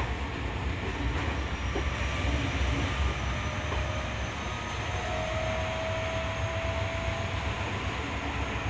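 Running noise inside a Tokyo Metro 10000 series electric train in motion: a steady low rumble of the wheels on the rails, with a faint motor whine that grows clearer about halfway through.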